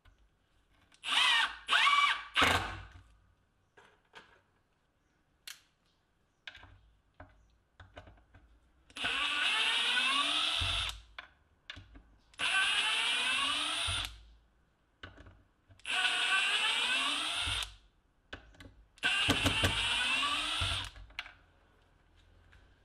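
Milwaukee M18 Fuel 2753 cordless impact driver running in short bursts: first driving a wood screw into an old board, then four runs of about two seconds each backing screws out, with small clicks between the runs.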